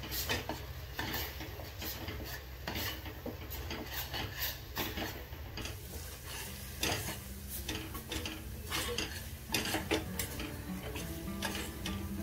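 A metal spatula scraping and stirring thick tomato-onion masala in a metal pot, in irregular strokes, with a faint sizzle of the spices frying in oil.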